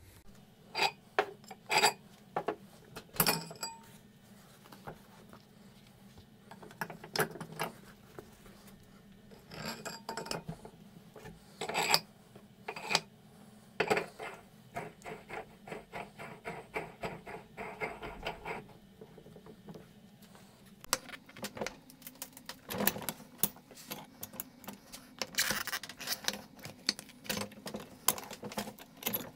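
Metal parts of a mini manual tire changer being handled and fitted: irregular clicks, clanks and scrapes as the red mounting/dismounting tool is set onto the threaded center post and its bar put in place.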